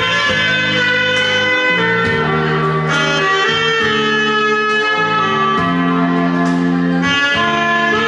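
Saxophone playing a slow melody in long held notes over a recorded backing track with bass and chords.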